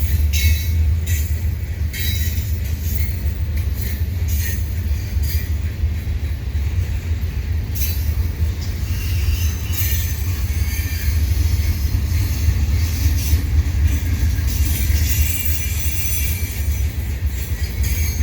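Freight cars of a slow mixed freight train rolling past: a steady low rumble of steel wheels on rail, with irregular clicks and some high wheel squeal over it.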